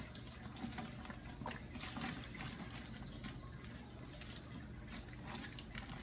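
Faint water trickling and dripping, with scattered small splashes over a low steady hum.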